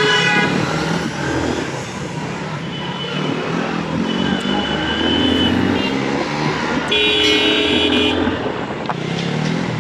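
Motorcycles riding through city traffic, engines running steadily, with vehicle horns honking several times; the loudest honk, about a second long, comes near the end.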